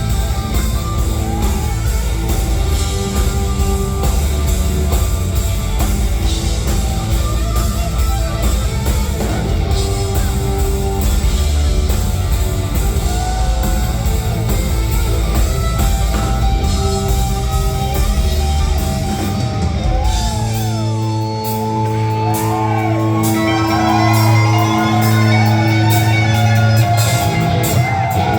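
Loud rock music with electric guitar and drums. About twenty seconds in, the drums drop out, leaving held low notes under bending guitar lines.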